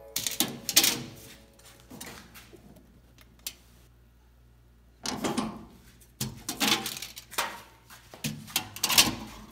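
Handling noises of a steel tape measure and a steel mechanics tool cart's drawers: scraping, clicks and rattles in three bursts, one at the start and a longer run in the second half.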